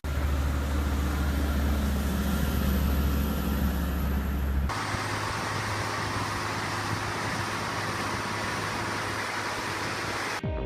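Heavy-haul transport truck running on the road, a steady engine and road noise. A deep rumble in the first part drops out abruptly a little under halfway through, and steady road noise carries on.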